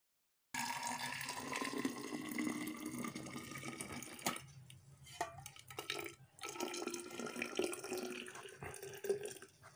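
Hot water poured from a steel bowl into the neck of a stainless steel vacuum flask, splashing and gurgling as it fills. It starts about half a second in and pauses briefly twice.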